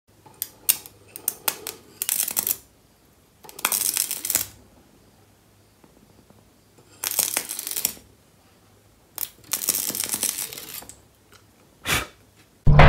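Electric arc sparking from a homemade welding setup: a few sharp clicks, then about five short crackling, hissing bursts of a second or so each, as the rod is struck and drawn against the metal and broken off again.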